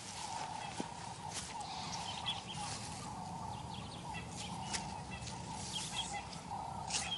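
Bush ambience: a steady mid-pitched drone with short bird chirps and scattered small clicks and rustles.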